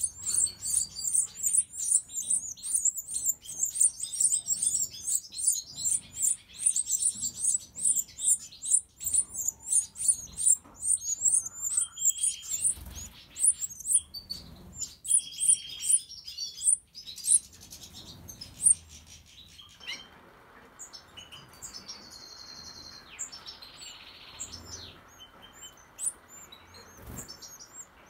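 Goldfinch nestlings begging with quick, very high chirps, about three or four a second, while an adult feeds them. The run thins out about twelve seconds in to scattered chirps and short trills. From about twenty seconds a faint steady hiss lies underneath.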